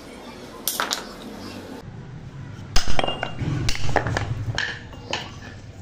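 Irregular sharp metallic clicks and clinks from a small hand tool working the bristles of a coir brush head, loudest and most frequent about three to four seconds in.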